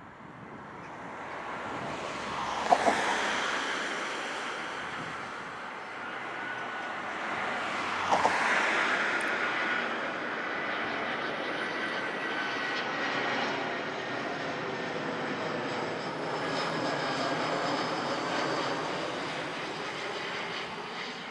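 Airbus A319 jet airliner with its twin CFM56 turbofans on landing approach: a steady rushing jet noise with a high fan whine, swelling as the aircraft comes close and then holding loud. Two brief thumps stand out, about three and eight seconds in.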